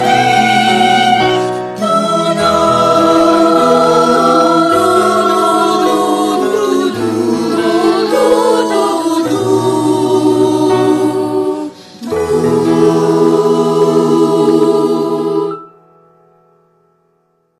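Choir singing a devotional hymn, with brief breaks about two seconds and twelve seconds in. It stops about fifteen seconds in, and one held note fades away to silence.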